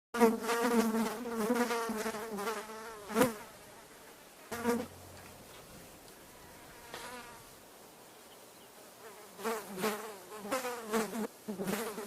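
Flies buzzing in flight, a wavering buzz that rises and falls in pitch as they move. It is loud for the first three seconds, comes back in a few short passes, and returns as several buzzes near the end.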